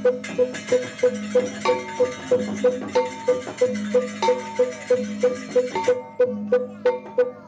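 Balinese gamelan playing barong accompaniment: a small gong struck in a steady pulse of about three to four strokes a second under ringing metallophone notes.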